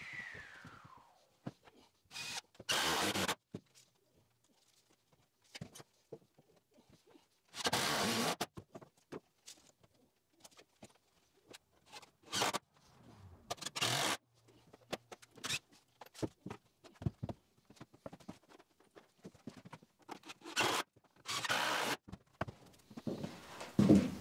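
Cordless drill/driver driving screws in short bursts of about half a second to a second each, seven or so times, with small knocks from handling the wood in between.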